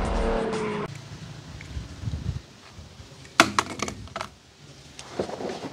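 A film soundtrack with music cuts off abruptly under a second in. A few sharp clicks and knocks follow about three and a half to four seconds in, from a hand handling a yellow plastic basket.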